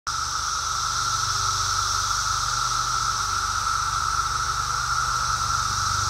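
Brood X periodical cicadas chorusing in the trees: a loud, unbroken drone with a second, higher hiss above it.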